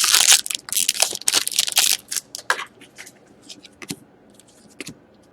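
Trading-card pack wrapper crinkling as it is torn open, dense rustling for about two seconds, followed by sparser light rustles and clicks as the cards are handled.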